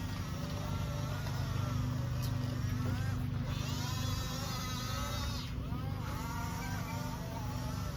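Huina 1:14 scale RC bulldozer running with a steady, low, diesel-like engine drone. Higher wavering tones sound over it and break off now and then.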